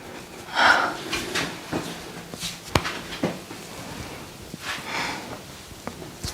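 Breathing and hands-on treatment sounds: a loud breath about half a second in, then several short sharp clicks, the loudest a little under three seconds in.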